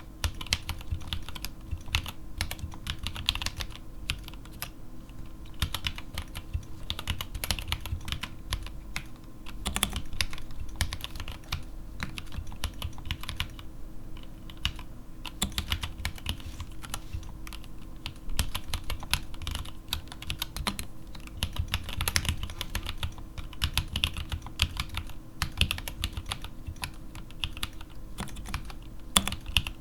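Continuous typing on a Keyhome KH61 mechanical keyboard with stock, unlubricated Gateron Black linear switches and SA-profile ABS keycaps: quick runs of key clacks, with a short lull about halfway through.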